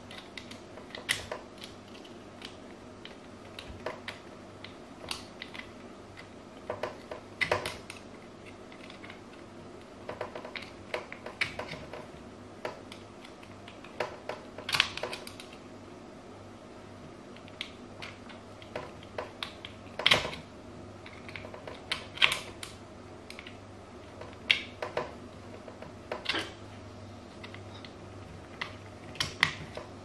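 Jubilee clip on a washing machine drain hose being tightened by hand: irregular small clicks and knocks of metal on the plastic hose, a few sharper ones now and then.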